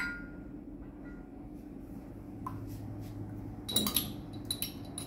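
A metal spoon clinking and scraping against small glass measuring cups: a couple of light clinks, then a quick cluster of ringing glass clinks near the end, over a steady low hum.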